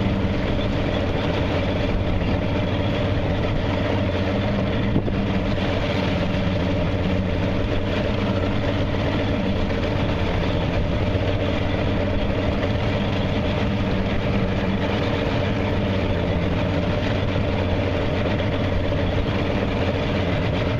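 Fishing boat's engine running steadily at idle, an even drone, with a single short knock about five seconds in.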